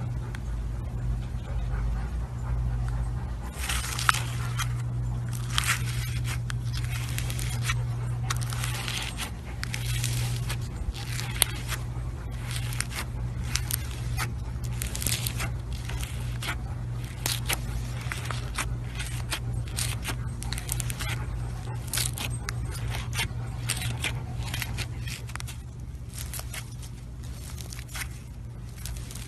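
Slime being squeezed and stretched by hand, giving irregular crackling pops and clicks over a steady low hum.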